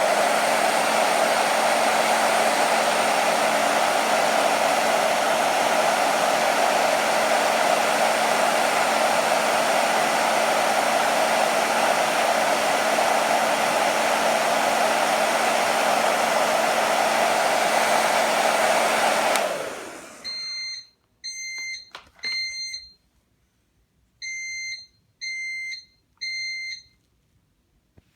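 Hair dryer blowing hot air steadily onto the heat element of an Edwards 2432B detector, switched off after about nineteen seconds. About a second later the fire alarm starts beeping in a temporal-three pattern: three short high beeps, a pause, three more, and a third set beginning near the end. This shows the heat detector has tripped the Edwards Fireshield panel into alarm.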